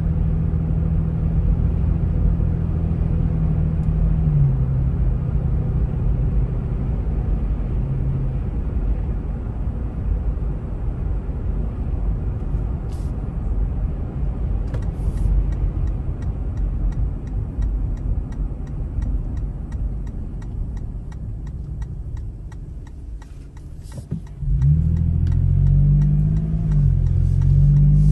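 Car driving, heard from inside: a steady low rumble of engine and tyre noise. Near the end it dips for a few seconds, then comes back louder with an engine note rising as the car accelerates.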